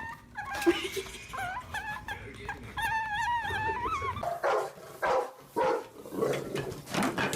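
A dog whining in high, wavering cries, then breaking into a run of barks about four seconds in.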